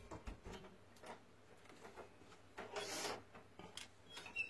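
Light clicks and taps of small hand tools working on a tiny circuit board, with a brief rustling hiss about three seconds in.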